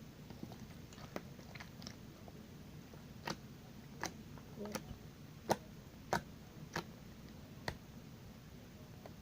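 Homemade borax-activated glue slime being squished and poked by hand, giving a series of sharp wet clicks and pops, about seven of them through the middle of the stretch, over a faint steady low hum.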